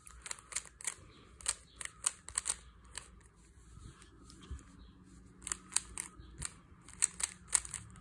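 3x3 Rubik's cube layers turned quickly by hand: a run of light plastic clicks and clacks in irregular clusters, with a short lull near the middle.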